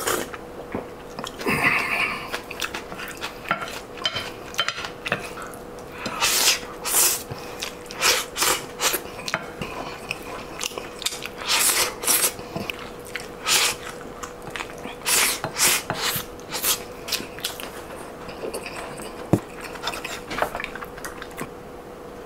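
Close-miked eating sounds: a wooden spoon scraping and clinking on a ceramic plate, with chewing and slurping in quick, irregular strokes. A faint steady hum lies underneath.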